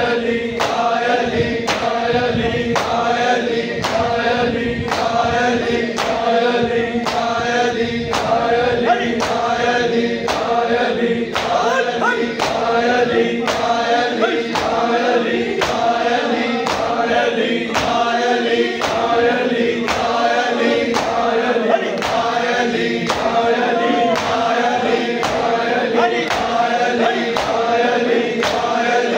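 Noha chanted by male voices in chorus over a steady held drone, with a sharp regular beat about twice a second throughout.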